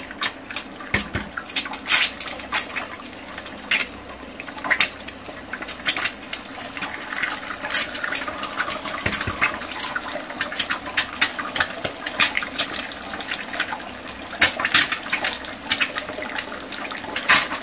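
Eggs frying in hot fat in a nonstick frying pan: a steady sizzle with dense, sharp spitting crackles.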